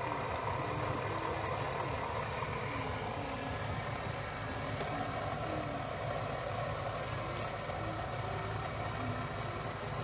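Radio-controlled Cat 336D model excavator working, a steady mechanical hum with short tones that come and go as the boom and bucket move.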